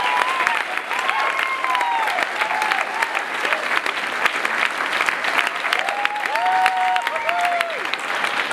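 Audience applauding, dense clapping with voices cheering and whooping over it.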